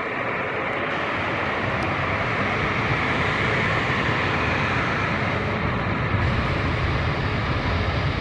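Airbus A220-300's Pratt & Whitney PW1500G geared turbofans running as the airliner taxis: a steady jet hiss and whine, with a low rumble that grows about two seconds in as the jet turns its tail toward the listener.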